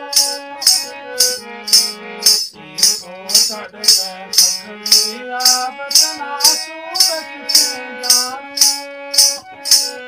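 A man singing a Gojri song with music, over a steady shaker-like rattle beat about twice a second.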